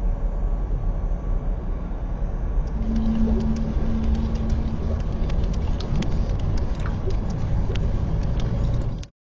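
City street ambience: a steady low traffic rumble. About three seconds in, scattered clicks and a brief low hum join it. It cuts off abruptly near the end.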